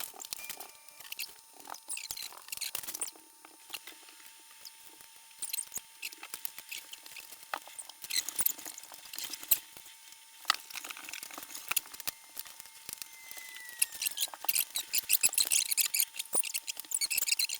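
Small plastic building-block pieces clicking and clattering as they are handled, sorted and pressed together, with the rattling growing denser near the end.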